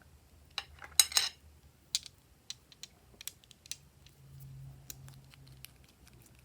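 Glossy slime being squeezed and folded by hand, giving sharp wet clicks and pops as trapped air bursts. The loudest is a quick cluster about a second in, and sparser single clicks follow.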